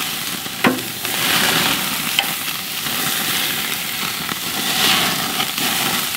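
Beef steaks searing on a grill grate over a wood fire, a steady sizzle of rendering fat. A sharp clack of metal tongs against the grate about half a second in, and a lighter click a little before two and a half seconds.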